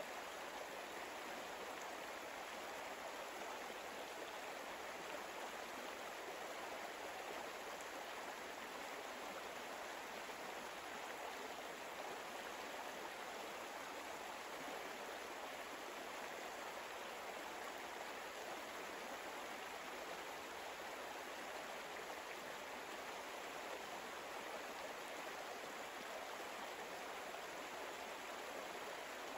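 Flowing stream water, a steady even rush with no change throughout.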